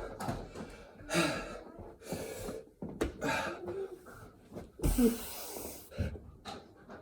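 A man breathing hard mid-set of burpees, with forceful gasping and snorting breaths about once a second and a loud thud about five seconds in as his body meets the floor.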